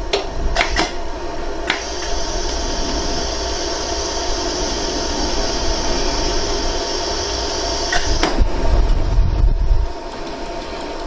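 Jewelry laser welding machine running with a steady fan-like hum, with a few sharp clicks in the first two seconds and another at about eight seconds. A low rumble swells from about eight seconds and drops away near ten.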